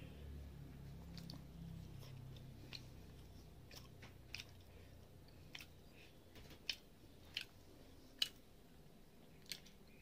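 Faint, close-miked chewing of rice and fried fish, with a low muffled sound in the first few seconds and scattered sharp wet clicks and smacks.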